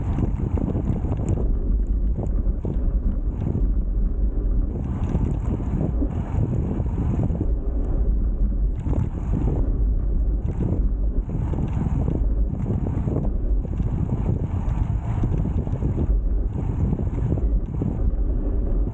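Wind rushing over the microphone of a road bike in motion: a steady, deep rumble that swells and eases in gusts.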